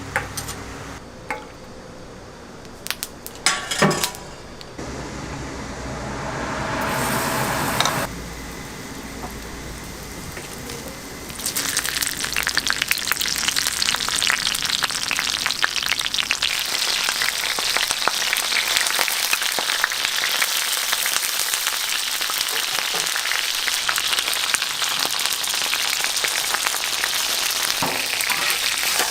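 Green onion pancake batter frying in oil on a hot griddle: a dense, steady sizzle that sets in about a third of the way through and holds. Before it, a few sharp clinks and knocks and a short rush of noise.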